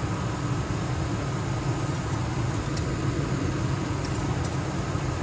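Ford F-150 pickup engine idling steadily at normal operating temperature, with a few faint clicks in the middle.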